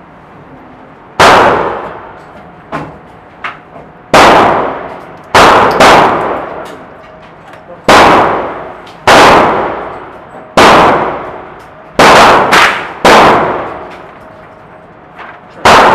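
Gunshots inside an indoor shooting range: about ten single shots at uneven gaps of one to three seconds, each followed by a long echoing decay off the walls. Two fainter pops come about three seconds in.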